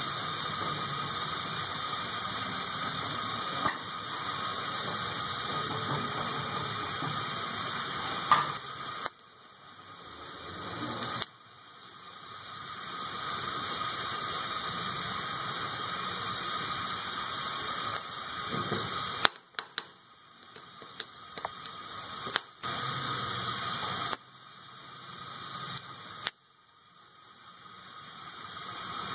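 Gas stove burner hissing steadily, with a few sharp clicks. Several times the sound drops away suddenly and swells back over a few seconds.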